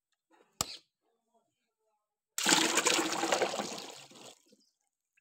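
Thick white cement primer, thinned with water, poured from one plastic paint bucket into another: a loud splashing pour starts about two seconds in and tapers off over about two seconds. A single short knock comes just before, near the start.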